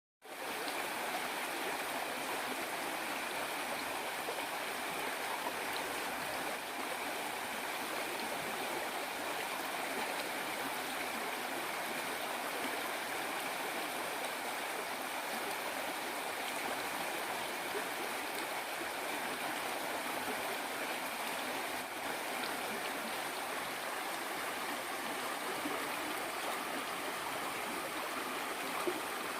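Waterfall: water falling and rushing with a steady, unbroken hiss.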